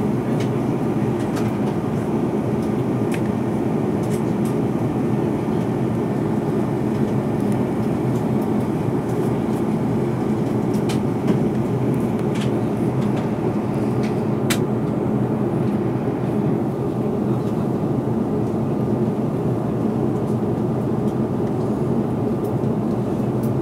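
Steady airliner cabin noise in flight: engine and airflow noise, a low even rush, with a few faint clicks.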